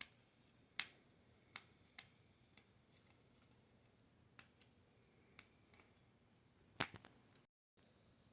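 Scattered sharp clicks and taps of small plastic packaging being handled, with the loudest near the start and a stronger double click near the end.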